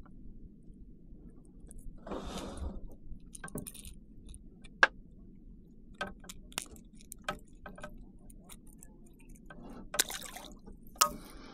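Small snook being unhooked from a hard-bodied lure, with scattered light clicks and rattles, then dropped back into the water with a splash near the end.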